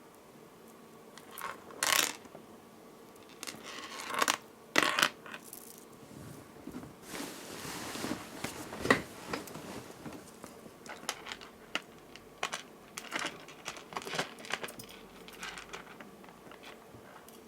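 Small beads and metal findings clicking and clinking against each other and the work surface while a beaded necklace is strung, a series of sharp irregular clicks with a brief rustle near the middle.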